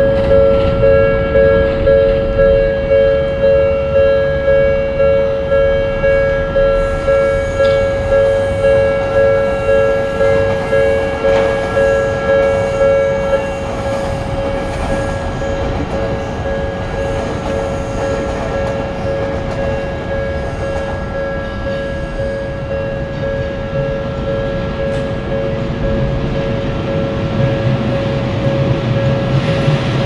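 Japanese level-crossing warning bell ringing its "kan-kan" alarm, a two-tone ring struck about twice a second; about halfway through the strokes blur into a steadier ring. A train's low rumble grows near the end as it approaches the crossing.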